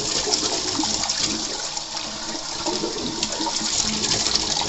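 Water rushing steadily through an electric water heater's emptied inner tank as it is flushed out to clean it.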